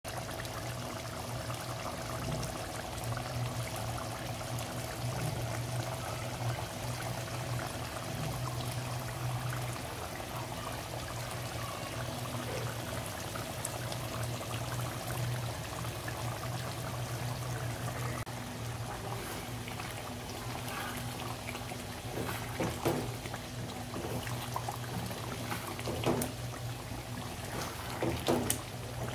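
Thick chicken curry bubbling in a metal pot, a steady wet bubbling over a low hum. In the second half, a wooden spatula knocks and scrapes against the pot as the curry is stirred.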